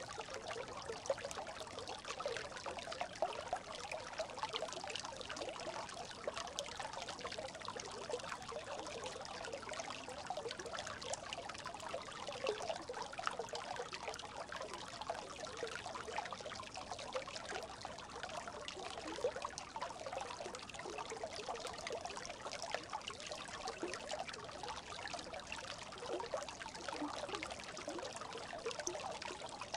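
Brook babbling steadily: a dense, even stream of small trickling splashes that stays the same throughout.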